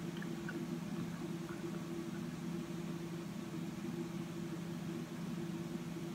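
A steady low hum of a machine running in the room, like an appliance or fan, under a faint hiss, with a few faint small ticks.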